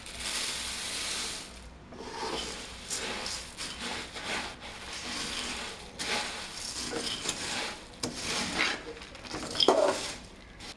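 Puffed rice being stirred into thick, hot jaggery syrup in a pan: a spoon scraping the pan and the crisp puffed rice rustling, in irregular swishing strokes.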